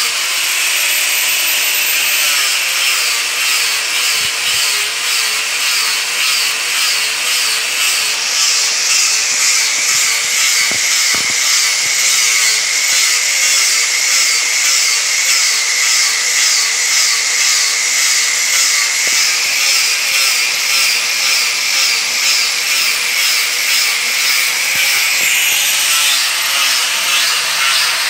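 Electric angle grinder with an abrasive disc running continuously against a wooden spoon, shaping and smoothing the wood. Its steady whine drops slightly in pitch about a third of the way in and climbs back near the end.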